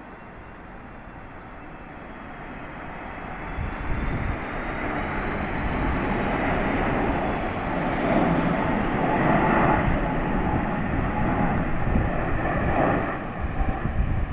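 Four-engined Airbus A380 airliner passing low overhead: its jet engine noise grows steadily louder over the first several seconds and stays loud as it passes.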